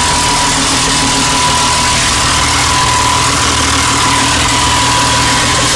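Turbocharged rear engine of a twin-engine Opel Calibra drag car running steadily at idle just after its first start, with a steady high whine over it.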